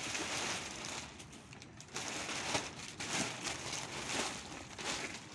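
Black plastic bag rustling as it is handled, in uneven spells of crackly noise.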